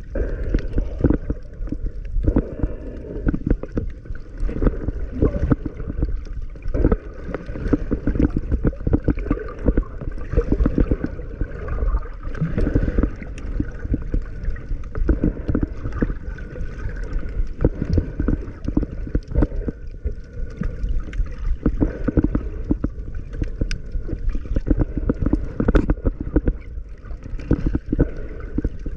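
Muffled underwater sound of gurgling bubbles and moving water, with a dense run of small irregular knocks and splashes.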